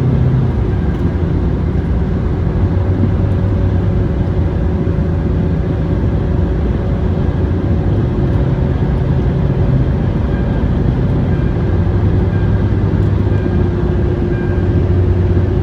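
Steady rumble of a moving road vehicle, engine and road noise, even throughout with a few faint steady tones.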